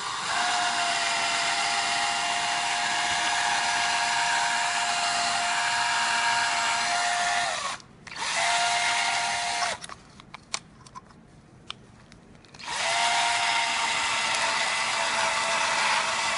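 Power drill with a 1/8-inch bit spinning at steady speed against thin sheet metal. It runs in reverse, so the bit turns without cutting. It runs in three spells: a long one, a short restart about eight seconds in, then a pause of about three seconds with a few clicks before it starts again and runs on.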